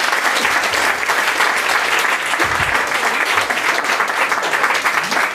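Audience and panellists applauding: dense, steady clapping that thins out near the end.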